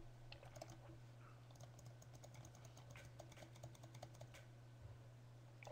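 Faint, irregular clicking of a computer keyboard being typed on, over a steady low electrical hum.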